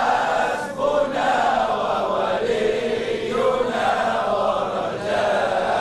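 Congregation of men chanting an Arabic devotional ibtihal (Sufi supplication) together, many voices blended into one sustained chant.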